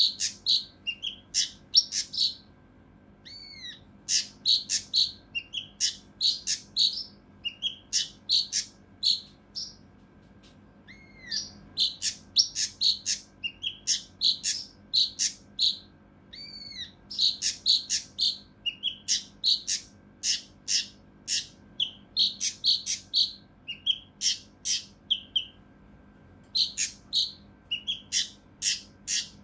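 Kinoi (cucak rante mas), a bulbul, calling in dense rapid-fire bursts of short sharp notes, a few to several a second, with brief pauses: an agitated bird's harsh "tembakan" call.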